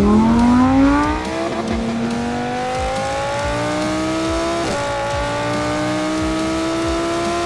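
Audi R8 V10 Plus's V10 engine accelerating hard through the gears. The revs rise steeply at first, then climb more slowly, with upshifts about a second and a half in and again near five seconds in.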